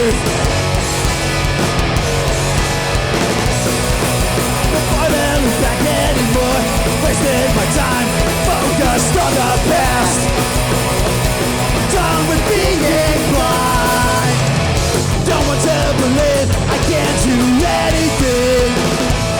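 A hardcore punk band playing loud and steady, live on stage, with full-band rock instrumentation.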